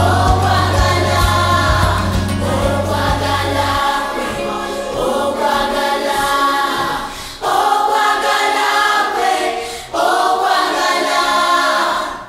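Christian worship song sung by a children's choir with accompaniment. The low bass drops out about four seconds in, leaving the choir, and the singing fades out at the end.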